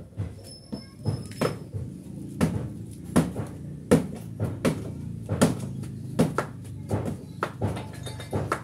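Rubber slippers slapping and stamping on a concrete floor as a person steps and kicks in place, about one to two sharp slaps a second in a steady rhythm.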